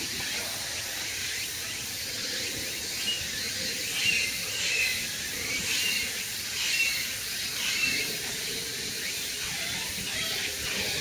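Steady hiss of outdoor background noise with short, high bird chirps repeating about once a second from about three seconds in until near the end.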